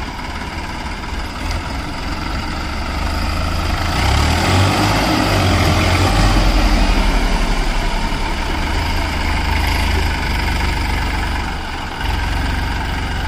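Tractor diesel engines working under load as a Massey Ferguson tows a Swaraj 744 FE out of mud. The engine sound grows louder from about four seconds in, then drops back near the end to a steady low idle.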